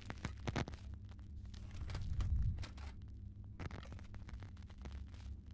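Glitch-style intro sound effects: sharp crackles and clicks over a steady low hum, with a low swell about two seconds in and another cluster of crackles past the middle.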